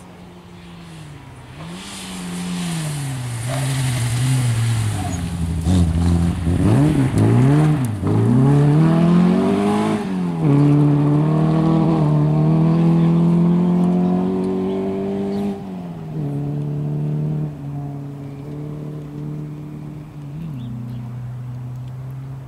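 Rally car engine driven hard. Its pitch rises and falls quickly several times with throttle lifts and gear changes, then climbs steadily in one long pull. About fifteen seconds in it drops and carries on at a lower, quieter, steady note.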